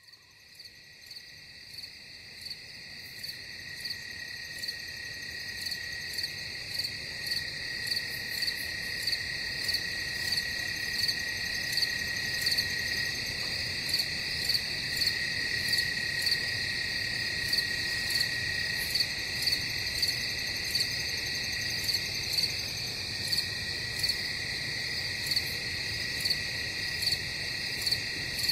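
Rainforest night chorus: steady high-pitched trilling with a call repeating about once a second. It fades in from silence over the first several seconds.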